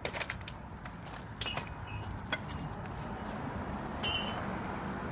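Steady outdoor background noise with a low rumble, broken by a few sharp clicks and knocks, the loudest about four seconds in.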